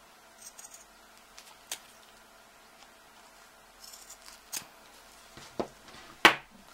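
Large dressmaking shears snipping through the seam allowance of a sewn fabric tab: a few separate quiet snips spread out, then a sharper, louder click near the end.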